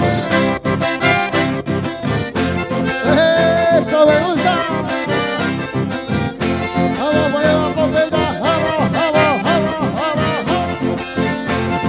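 Live dance music led by two button accordions with a strummed guitar, a steady beat throughout and a wavering melody line coming in twice.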